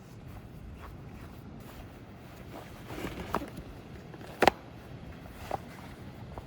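A few short, sharp knocks over a steady low rush of background noise; the loudest knock comes about four and a half seconds in.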